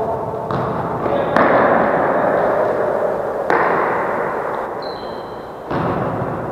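Four sharp impacts of a football being kicked, each followed by a long echo that rings through a large indoor hall.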